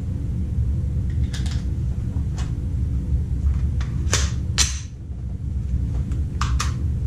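Metallic clicks and clacks of a Roni G2-10 carbine (a Glock 20 in a carbine chassis) being picked up and readied, no shot fired. The two loudest clacks come about half a second apart just past the middle, over a steady low hum.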